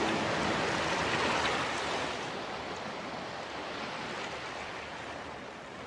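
Steady hiss of sea waves, fading down over the first three seconds and then holding low.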